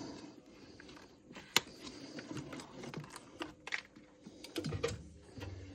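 Irregular light clicks and taps of power steering pipes and their clips being handled and tucked into place, the sharpest click about one and a half seconds in.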